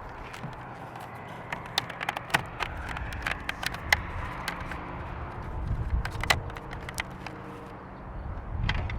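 Hands working the plastic side-mirror turn-signal assembly and its housing, with irregular small clicks and taps of plastic parts. A low background rumble swells twice.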